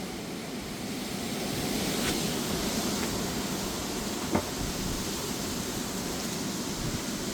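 Strong, gusty wind with rain: an even rushing noise that swells about two seconds in. A single sharp tap comes a little past halfway.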